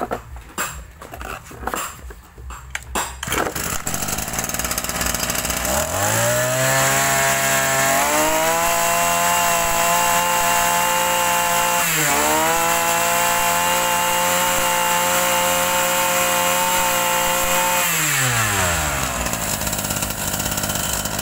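A Kubota DB263 brush cutter's 26cc two-stroke engine runs after a few knocks as the machine is set down. It catches about six seconds in, climbs in speed about two seconds later and holds steady, with a brief dip midway. It then winds down and stops near the end.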